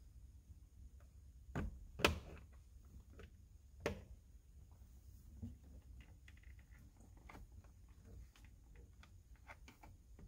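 A screwdriver prying and tapping at the plastic access covers on the back of a Toyota Sienna steering wheel: a few sharp clicks, the loudest about two seconds in, then lighter scattered ticks.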